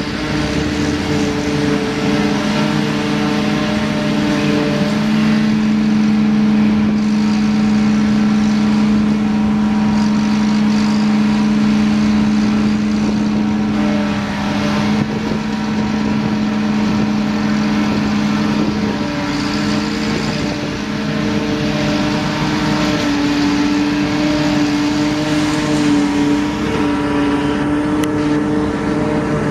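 Tractor's diesel engine running steadily, its pitch shifting up a little around six seconds in and easing back down later on.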